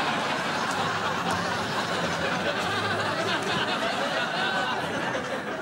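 Studio audience laughing: a dense, sustained wave of crowd laughter that dies down near the end.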